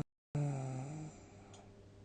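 A sleeper's loud, low, buzzing snore that drops out abruptly for a moment near the start, resumes, and ends about a second in, leaving only a faint steady hum.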